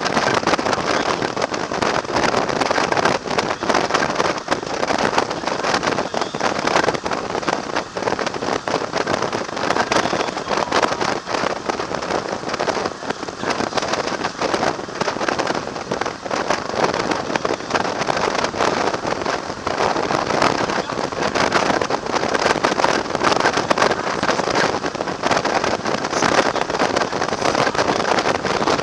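Steady rush of wind and road noise over the microphone of a camera mounted on a motorcycle cruising along a highway, with no clear engine note standing out.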